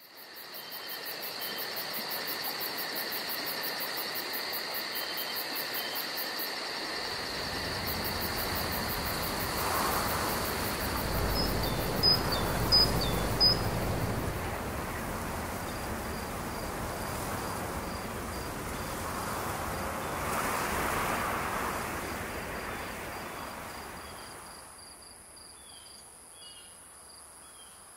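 Outdoor field ambience of crickets and other insects chirring steadily in high, fast-pulsing trills. A low rumble joins about seven seconds in, three short sharp sounds come about halfway through, and the ambience fades near the end.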